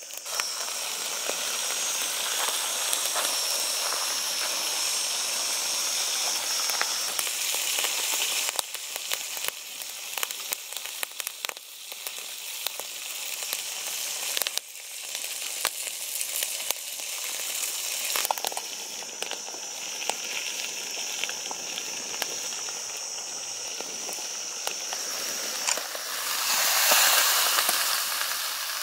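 Open wood fire crackling with sharp pops under a foil-wrapped whole fish on a wire grill, with a steady sizzle and hiss of cooking. The hiss swells louder briefly near the end.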